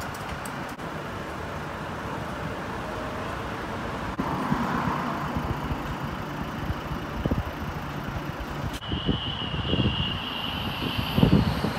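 Volvo FH16 750 truck's diesel engine running with a steady low rumble as the truck moves off, growing louder about four seconds in. After about nine seconds, gusts of wind buffet the microphone and a steady high tone sounds over the distant engine.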